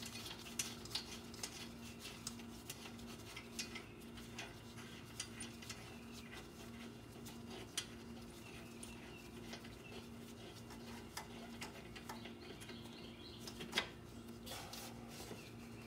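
Small irregular metal clicks and taps of hand work on the bolts behind a car's rear wheel hub, with one sharper click near the end, over a steady low hum.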